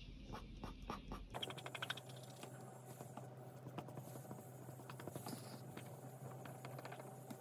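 Tombow Mono Zero pen eraser scratching faintly over charcoal-covered paper in many quick, short strokes, lifting charcoal to draw beard highlights.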